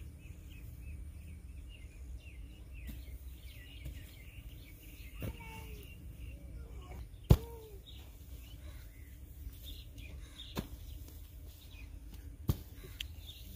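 A short-handled hoe chops into a heap of wet mud mixed with fine wheat straw. It makes a few sharp single thuds a couple of seconds apart, the loudest about seven seconds in. Birds chirp throughout over a steady low rumble.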